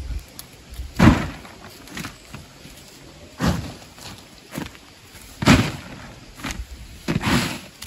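Shovel blade scraping into loose dry soil and flinging it against the foot of a tarp wall, in about seven rough strokes, some louder than others. The soil is filling a trench to bury the tarp's edge.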